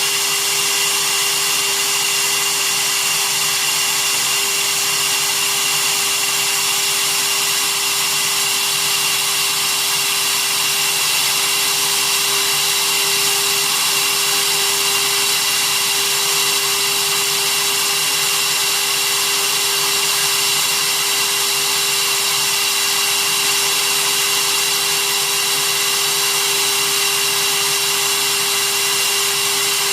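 Small CNC router's spindle motor running at a steady speed with a constant high whine, milling a copper-clad circuit board.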